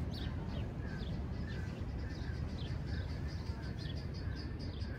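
Small birds chirping in the background, many short calls in quick succession, over a steady low rumble.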